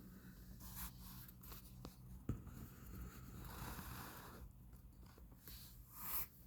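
Faint rustling and scraping with a sharp click a little over two seconds in, over a steady low hum.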